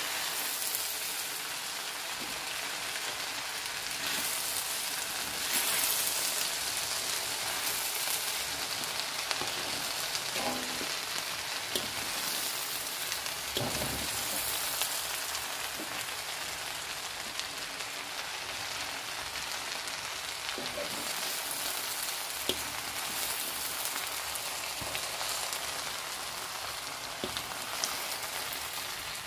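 Diced meat-and-vegetable pie filling frying in a pan with a steady sizzle. A few soft knocks come from the utensil as the filling is stirred.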